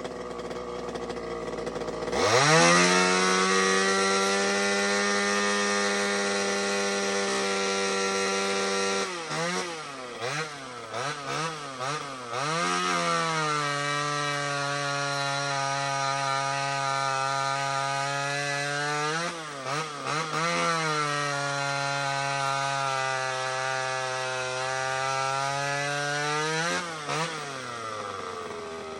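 Neotec 25cc top-handle chainsaw's two-stroke engine, fitted with a custom exhaust pipe. It jumps from idle to full throttle about two seconds in and holds a high, steady scream. Several quick throttle blips follow, then long wide-open runs, before it drops back toward idle near the end.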